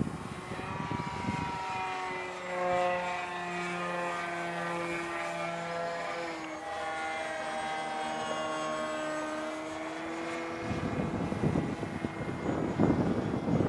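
Radio-control model airplane's motor and propeller droning in flight: a steady pitched hum whose pitch steps down a little about six and a half seconds in. The hum fades out about ten and a half seconds in, leaving wind noise on the microphone.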